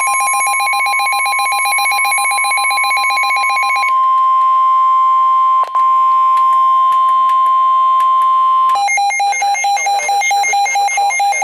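Emergency Alert System weather-radio tones announcing a second severe thunderstorm warning. For about the first four seconds, rapid digital header data bursts sound over a steady single-pitched alert tone. The alert tone then continues alone for about five seconds. Near the end, another stretch of data bursts replaces it.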